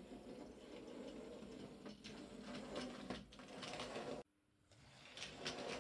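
A 00 gauge model tank engine running through the yard points: a faint whirring electric motor with wheels clicking over the rail joints. About four seconds in the sound cuts off suddenly, then picks up again.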